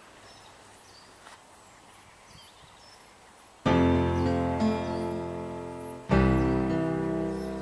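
Faint outdoor background with small high chirps, then about halfway through a piano starts playing slow, sustained chords. A new chord is struck a little over two seconds later and left to fade.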